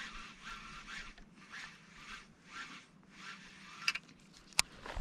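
Small wavelets lapping against a kayak hull in soft, repeated splashes about twice a second. Two sharp clicks come near the end.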